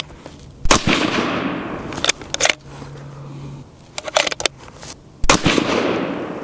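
Two suppressed .308 Winchester rifle shots from a Sig Cross bolt-action rifle with a Liberty Infiniti X suppressor, about four and a half seconds apart, each with a long echoing tail. Between them the bolt is worked with a few quick metallic clicks.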